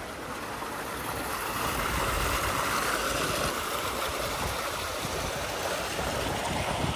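Steady rush of running water on water-park slides, growing louder over the first couple of seconds and then holding even.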